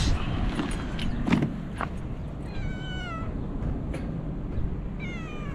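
Cat meowing twice, a couple of seconds apart, each call falling slightly in pitch, over wind noise on the microphone.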